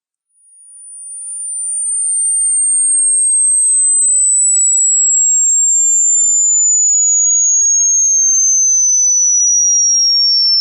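Hearing-test tone: a single very high, pure electronic tone gliding slowly and steadily down in pitch. It fades in over the first couple of seconds, then holds at a steady level.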